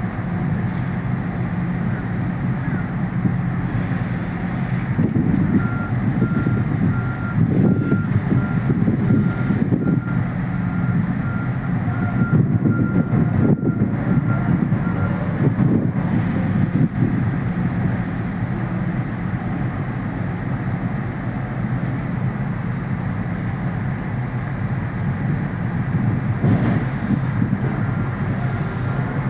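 Steady low engine drone, with a cargo-handling vehicle's reversing alarm beeping repeatedly from about six seconds in to about fifteen seconds, and again near the end.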